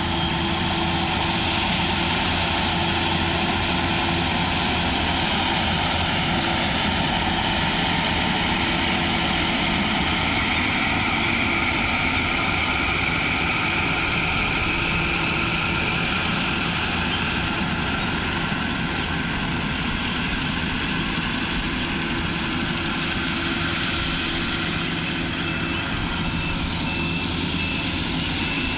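Engine of a rice harvesting machine running steadily: a continuous low hum with a higher whine above it, unchanging throughout.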